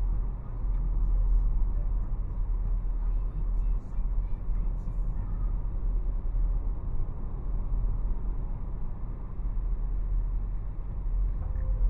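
Steady low road and tyre rumble inside the cabin of a moving Hyundai Tucson, the car driving at road speed.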